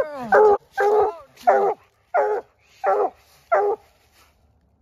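Coonhound barking at the foot of a tree: a steady run of short, loud barks, about one every two-thirds of a second, the tree bark that tells the hunter a raccoon is up the tree.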